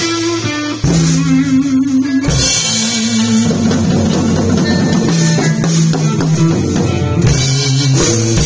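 Live rock band jamming: two electric guitars, a semi-hollow and a Stratocaster-style, play sustained chords over a drum kit. The chords change every second or so, with sharp hits about a second in and near the end.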